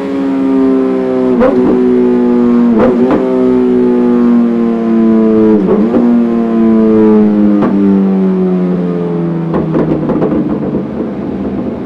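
Yamaha FZ8 Fazer's inline-four through a Dominator aftermarket silencer, engine speed falling slowly and steadily as it winds down off the throttle. Several sharp exhaust pops break through as it slows.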